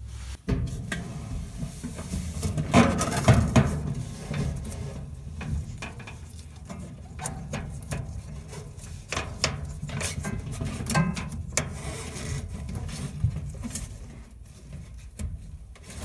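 Rubbing, scraping and irregular knocks and clicks as gloved hands loop a dryer's drive belt around the spring-loaded idler pulley and the motor shaft, working the belt against the pulley and cabinet. The handling is loudest about three seconds in.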